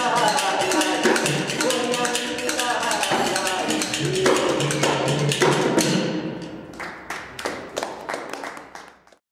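Live folk music accompanying a puppet show: a melody, likely sung, over rapid percussion beats. About six seconds in the melody fades and only the percussion strikes remain, growing fainter until the sound cuts off just before the end.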